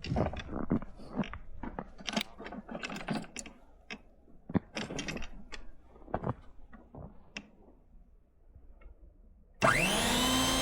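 Irregular mechanical clicking and rattling. Near the end, a small electric motor starts up with a rising whine and keeps running.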